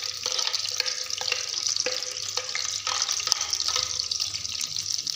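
Minced garlic sizzling in hot ghee in a kadhai, a steady hiss with many small crackles as the garlic fries.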